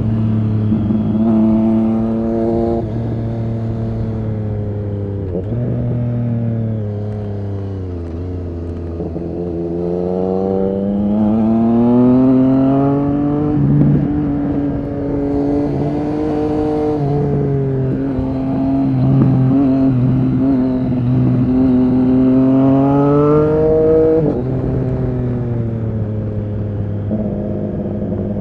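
Triumph Street Triple RS 765's three-cylinder engine through an SC-Project S1 exhaust, heard on the ride. The revs rise under throttle and drop sharply at shifts around 3 and 5 seconds in. They then climb steadily for several seconds, hold fairly even, and fall again about 24 seconds in.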